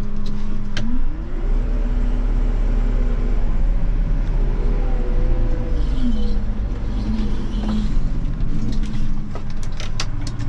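Tractor engine running, heard from inside the cab: the revs rise about a second in, hold, and fall back about six seconds in. A few sharp clicks come near the end.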